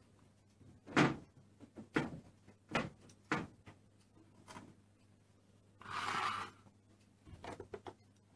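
Plastic Play-Doh set pieces being handled: a string of sharp taps and clicks about a second apart, a short rustling scrape about six seconds in, then a quick run of small clicks near the end.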